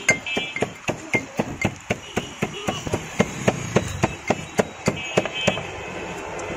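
Rapid, even knocking, about four to five sharp strikes a second, like a blade chopping on a board. A short high ringing sounds near the start and again about five seconds in.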